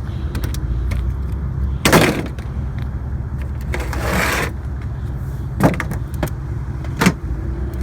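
A vehicle running at low speed, with a steady low hum. A few sharp knocks cut through it, the loudest about two seconds in, and there is a short rushing noise about four seconds in.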